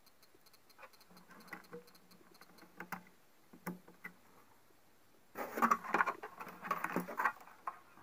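Small clicks, taps and rustles of hands handling wires and plastic plug connectors on a CRT TV's circuit board, scattered at first, then a dense run of them from about five and a half to seven seconds in.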